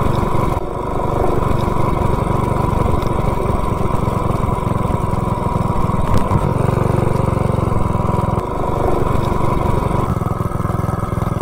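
Coleman mini bike's small single-cylinder four-stroke engine running, its level rising and falling a few times as the throttle changes.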